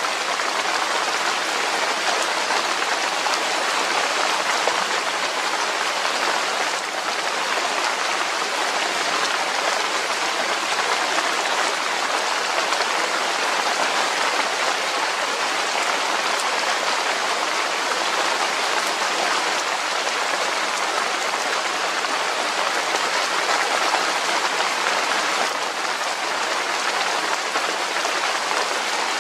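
Steady rain falling, an even hiss of drops on leaves and surfaces.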